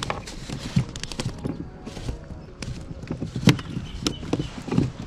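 Small freshly caught baitfish flapping on a plastic kayak deck: irregular taps and knocks, loudest about three and a half seconds in.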